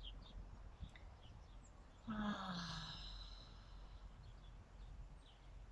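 A person's long, audible sighing exhale on a voiced 'haa', falling slightly in pitch and lasting about a second, starting about two seconds in. It is part of a full-breath breathing practice.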